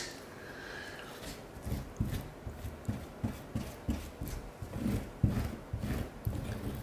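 Gloved hand rubbing and pressing tile grout into a mirror-glass mosaic: a run of soft, irregular strokes and light knocks, about two a second.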